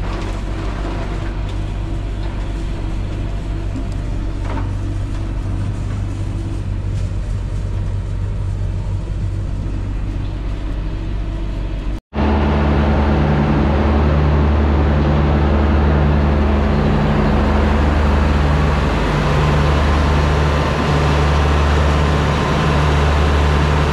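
Tractor engine droning inside the cab, with a forage harvester chopping corn just ahead. After an abrupt cut a little past halfway, tractor engines run louder and steadier at the silo, with a pulsing low hum.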